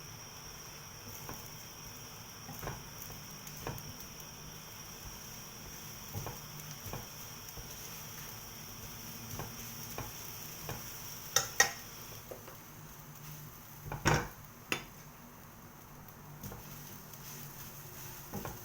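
Egg frying in a pan, a faint steady sizzle with scattered light taps of a spatula on the pan, and a few louder metal clanks about eleven and fourteen seconds in as the egg is turned.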